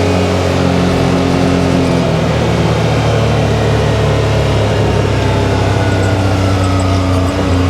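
2023 Can-Am Maverick X3 DS Turbo side-by-side's turbocharged three-cylinder engine running steadily under way, its note shifting about two seconds in. A faint high whine glides slowly down near the end.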